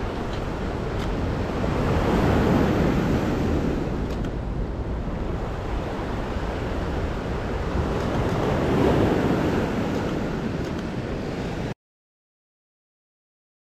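Lake Superior surf breaking and washing on a cobble shore, a steady wash that swells louder twice, about two seconds in and again about nine seconds in. Near the end it cuts off to dead silence.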